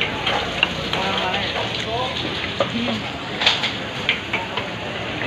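Steady hiss of running and splashing water at a fish-cutting stall, broken by a few sharp knocks and clatters, with faint voices underneath.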